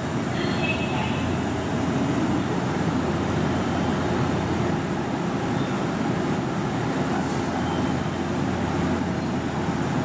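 JR West 227 series electric train at the platform, a steady rumble, with a brief high hiss about seven seconds in.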